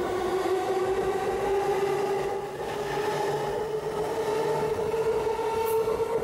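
JR E233-series electric train accelerating out of a station. Its traction motors whine in several tones that rise steadily in pitch over rail and wheel noise as the cars pass.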